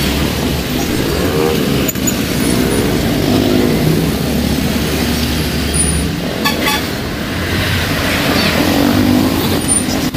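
Motor vehicle traffic passing close by, engine sound rising and falling, with a few short metallic clinks about two-thirds of the way through.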